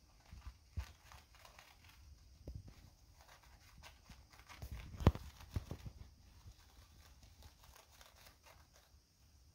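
Syrian hamster moving toilet paper while building her nest: faint rustling and crumpling of paper, with scattered light knocks, the loudest about five seconds in.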